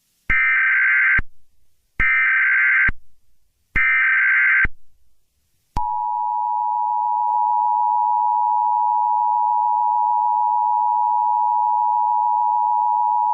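Emergency Alert System header: three short, raspy bursts of digital SAME data tones, each just under a second long. About six seconds in, the steady two-tone EAS attention signal begins, the alarm that announces an emergency broadcast message.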